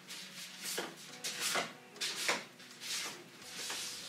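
Card-stock folder and paper cards being handled and slid out, rustling in several short swishes.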